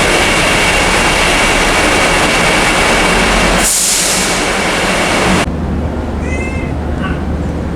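Loud, steady engine noise with a thin high whine in the ferry's vehicle hold, cutting off suddenly about five and a half seconds in. A quieter low hum follows, with a few short high squeaks.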